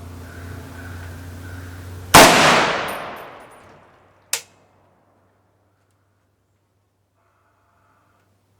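A single rifle shot from a Riley Defense RAK-308C firing a .308 round, loud and sudden with a long echo fading away. About two seconds later comes one short, sharp metallic clink.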